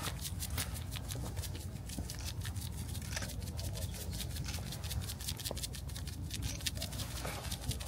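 Seasoning shaker shaken over a raw bird: a fast, irregular dry rattle of many small ticks.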